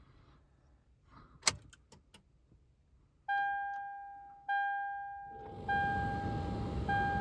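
Ignition key clicks in a 2011 Toyota Tundra, then the dashboard warning chime sounds a single tone repeating about every 1.2 seconds. Partway through, a steady rushing noise comes on as the ignition is switched on, but no starter click or cranking follows: the no-crank, no-start fault.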